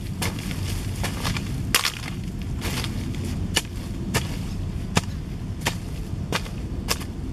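A hand hoe chopping into soil, about a dozen dull strikes spaced roughly half a second to a second apart, over a steady low background rumble.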